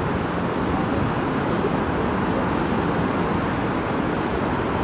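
Steady city ambience: a continuous hum of distant road traffic.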